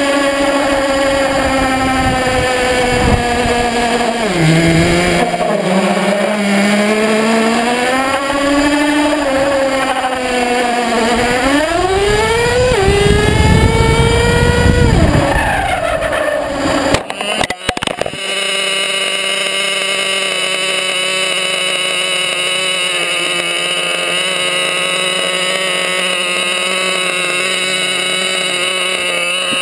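RC car's motor, heard from on board, revving up and down, its pitch rising and falling with speed over tyre and road noise. A few sharp knocks about 17 seconds in, then it settles to a steady, even running note with the road noise gone.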